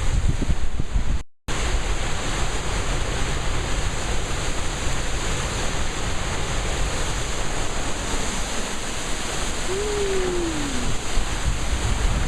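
Strong storm wind blowing across the microphone as a steady rushing noise. The sound cuts out for a moment about a second in, and a short falling tone is heard near the end.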